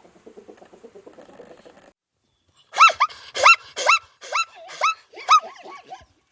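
An animal gives a run of about seven loud, short, high-pitched calls, each rising and falling in pitch, roughly half a second apart. They follow a soft, rapid pulsing sound.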